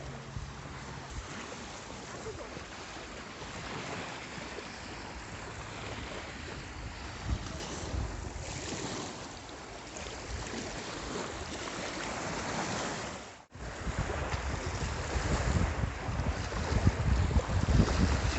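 Sea waves washing ashore with wind buffeting the microphone. About two-thirds of the way through the sound cuts out for a moment, then comes back louder with heavier gusts of wind.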